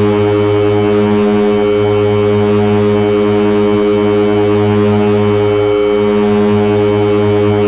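Heavy electronic drone noise from a Hewlett-Packard 200C audio oscillator run through three Frequency Analyzer v1 units: a loud, dense stack of steady tones, heaviest in the low hum, slowly wavering and beating against each other.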